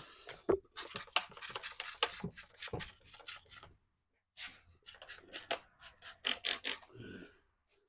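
Hand spray bottle squirting soapy water onto the tire bead as lubricant: a quick run of short hissing squirts, about three to four a second, then a pause and a second run.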